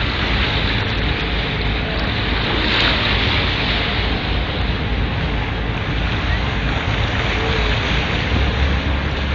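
A small boat under way: water rushing and splashing along the hull, with wind buffeting the microphone, and a brief louder rush about three seconds in.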